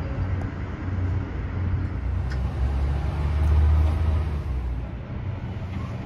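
Low rumble and hum of a moving cable car gondola, heard from inside the cabin. It swells to its loudest about three and a half seconds in, then eases off.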